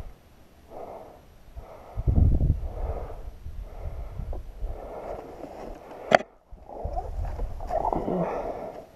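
A person breathing hard in repeated puffs about once a second, close to a helmet-mounted microphone, out of breath from a steep climb. A heavy low thump comes about two seconds in, and a sharp click a little after six seconds.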